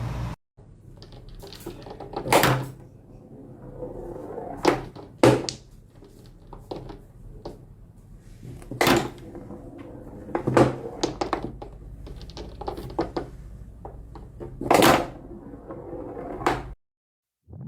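Irregular knocks and bangs, about half a dozen loud ones and several smaller ones spread over some sixteen seconds, over a faint low hum.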